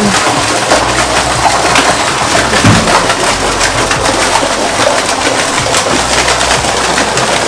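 Thin fountain jets arcing into a plunge pool, a loud steady splashing of water on water.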